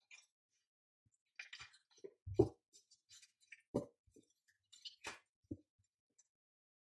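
Tarot cards being handled: a scatter of soft clicks, taps and card-stock rustles as the deck is shifted and squared, with a single duller knock about two and a half seconds in.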